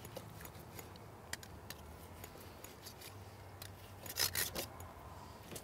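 Knife sawing through a grilled ribeye steak on a plastic cutting board: faint slicing strokes with small clicks as blade and carving fork touch the board, and a brief louder burst a little after four seconds in.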